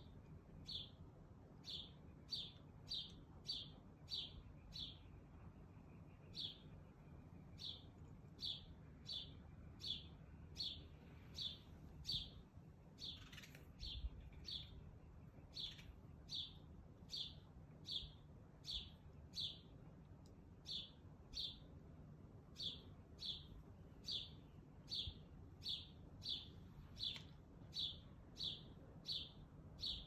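A bird calling over and over in short, high chirps, each a quick downward-sliding note, about one to two a second, faint against a low steady background hum.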